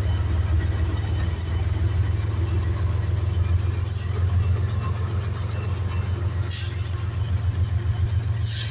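Amtrak California Zephyr passenger train pulling away: a steady low rumble from the train, with four short hisses spaced a couple of seconds apart.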